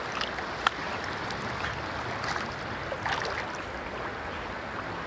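River water rushing and lapping close to the waterline, a steady wash of noise with a few small splashes and sharp clicks, the sharpest about two thirds of a second in.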